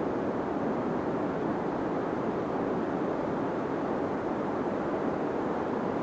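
Deep white noise for sleep: a steady, unchanging rushing hiss weighted toward the low end, muffled and with little treble, used as sound masking.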